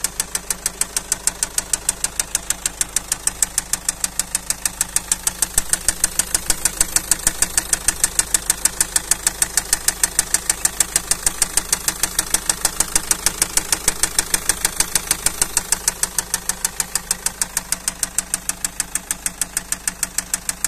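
Car diesel engine idling with a sharp, regular tapping knock, about five taps a second at an even rate. This is the engine knock or tapping fault being demonstrated.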